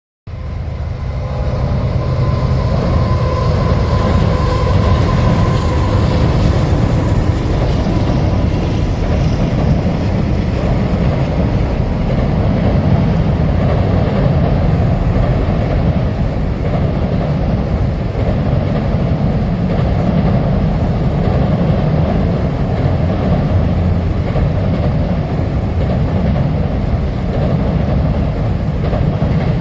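Freight train of autorack cars rolling across a steel deck-truss railway bridge: a loud, steady rumble of wheels on rail and bridge, with a thin high ringing tone over it in roughly the first six seconds.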